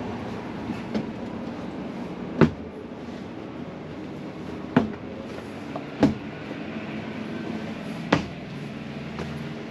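Four sharp knocks spaced one to two seconds apart, about two and a half, five, six and eight seconds in, over a steady background hum.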